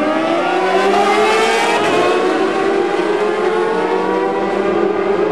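A pack of 600cc superstock racing motorcycles accelerating hard off the start, many engines revving together. Their pitch climbs over the first couple of seconds and then holds high and steady.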